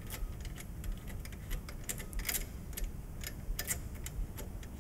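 Light, irregular clicks and ticks as the screwed-in lens holder of a laser cutter's head is unscrewed and handled by hand, small metal parts knocking against each other.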